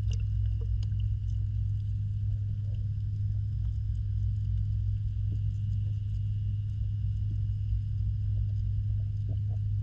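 Underwater sound in a backyard pond: a steady low hum, typical of the pond's filtration pump carried through the water, with scattered faint clicks and ticks.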